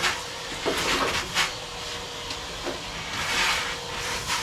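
Scattered knocks and clatters of parts and tools being handled, with a longer scraping rustle about three seconds in.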